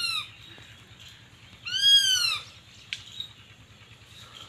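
Sparrowhawk calling: two drawn-out, thin wailing calls, each rising then falling in pitch, one at the very start and a louder one about two seconds in. A short sharp click follows about a second later.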